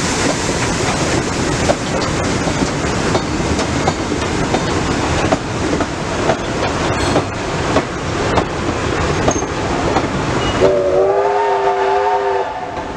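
Heritage carriages and goods wagons rumbling past, their wheels clicking over the rail joints. Near the end the steam locomotive at the head of the train sounds its whistle for nearly two seconds, a chord of several wavering tones.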